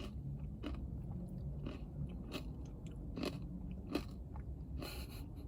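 A person chewing a mouthful of acai bowl close to the microphone, with irregular soft crunches and mouth clicks.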